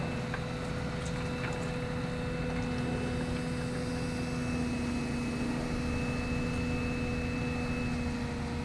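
Excavator diesel engines running steadily, with a constant hum and a thin high whine that does not change pitch.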